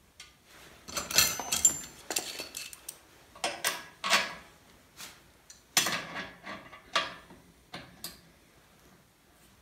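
Steel washer, lock washer and nut being fitted onto a bolt on the engine hoist's steel jack mount: scattered metallic clinks and clicks, a few ringing briefly, thinning out near the end.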